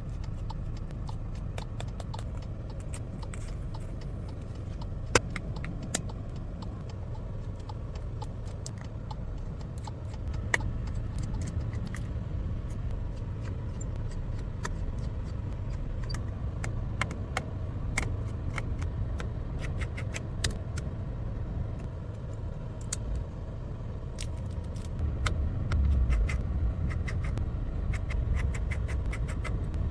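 Scattered small clicks, taps and scrapes of hand tools working on an iPhone 12 Pro Max opened for a charging-port replacement, over a steady low rumble.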